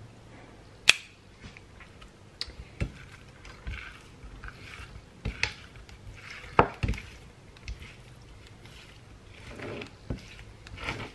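Kitchen tongs tossing raw seasoned shrimp on a ceramic plate: scattered clicks and taps of the tongs against the plate, the sharpest about a second in and another loud one about six and a half seconds in.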